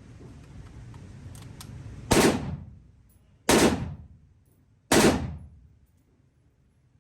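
Rifle firing .223 rounds: three single shots about a second and a half apart, each a sharp report with a short echoing tail.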